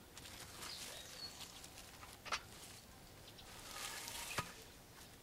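Faint knocks of a small hand axe and split-wood skids being worked into leaf-littered ground, two sharper knocks about two seconds apart, with light rustling of dry leaves between them.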